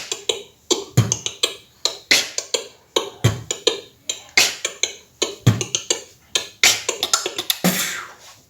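Beatboxing: a beat pattern built on the inside hi-hat, a quick run of sharp tongue clicks against the roof of the mouth, with a deep bass kick about every two seconds.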